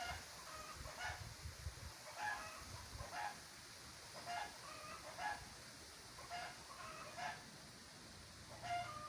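Short bird calls repeating about once a second, with wind rumbling on the microphone for the first two seconds.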